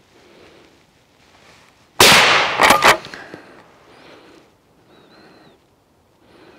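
A single loud hunting rifle shot about two seconds in, its report rolling on for about a second, fired at a yearling wild boar that drops to the shot.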